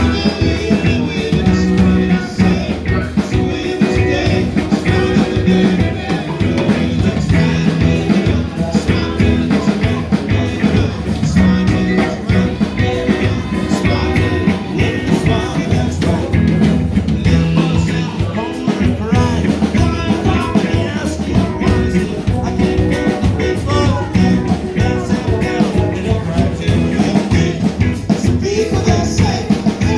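A band playing an upbeat, calypso-flavoured rock song, with a drum kit, a moving bass line and singing.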